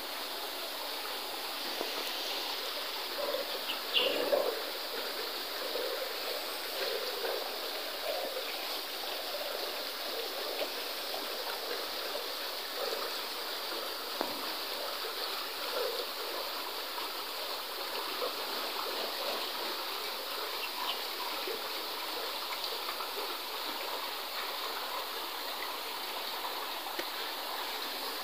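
Steady rush of running water, an even hiss that holds level throughout, with a brief louder knock about four seconds in.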